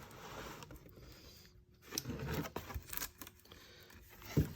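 Rustling and crinkling of a plastic model kit's cardboard box and parts being handled, with a few light taps and a sharper knock near the end.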